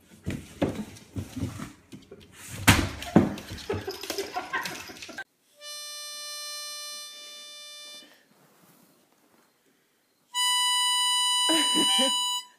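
Knocking and rustling as a dog pushes its head into a cardboard box, then two long, steady musical notes, the second higher and louder.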